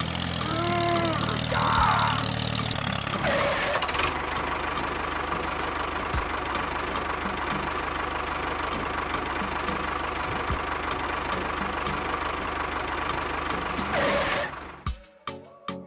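A motor or engine running steadily with a low hum, starting abruptly and cutting off near the end, with a few short pitch glides in the first two seconds.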